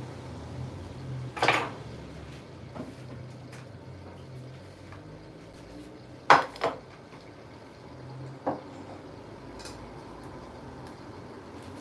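Crockery and cutlery clinking now and then out of shot: about six short, sharp clinks a second or more apart, the loudest two close together about six seconds in.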